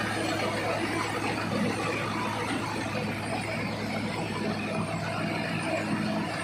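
Sonalika tractor's diesel engine running steadily while it drives a Birbal straw reaper: a constant low engine hum under dense, even machine noise.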